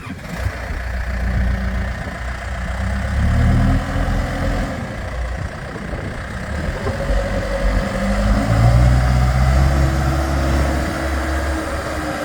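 Diesel engine of a Case 580 Super M Series 2 backhoe loader running, its revs rising and falling twice: once from about a second in and again from about eight seconds in.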